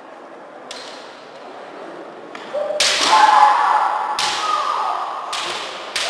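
Bamboo shinai cracking on each other and on armour in a kendo bout: a faint crack, then a run of sharp strikes from about three seconds in. Loud, drawn-out kiai shouts from the fencers run over the strikes.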